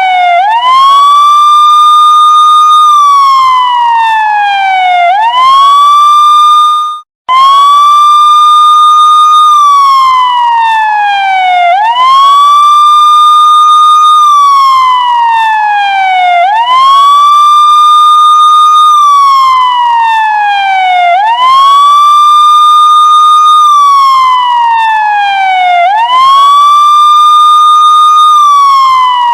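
Police siren wailing: the tone rises quickly, holds high for about two seconds, then slides slowly back down, over and over about every five seconds. The sound cuts out for a moment about seven seconds in.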